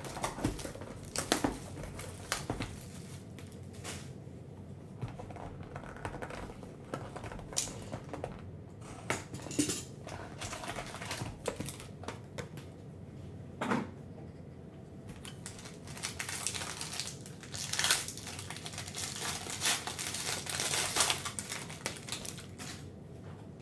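Hands handling a cardboard hockey-card hobby box and its packs: scattered light taps, clicks and scrapes. From about two-thirds of the way through, a foil card pack wrapper is torn open and crinkles for several seconds.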